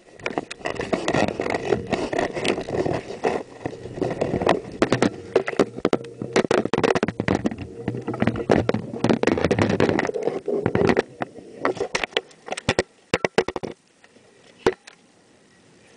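Camera handling noise on a boat: a dense run of knocks, rubs and rattles that dies away about two seconds before the end, leaving one last knock.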